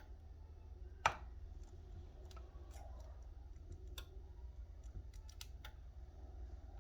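Scattered small clicks and ticks of a razor blade prying at the edge of an iPhone 12 Pro Max screen as it is levered up, one sharper click about a second in, over a steady low hum.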